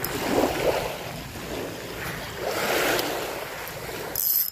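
Small waves washing in surges onto a sandy, pebbly beach, with wind rumbling on the microphone. A brief, sharp high hiss comes just before the end.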